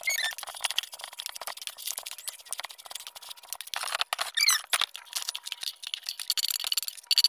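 Handling noise of ice scramble being transferred from an aluminium pot into a plastic tub: a metal ladle clinking and scraping in the pot and plastic containers knocking, with a few short high squeaks.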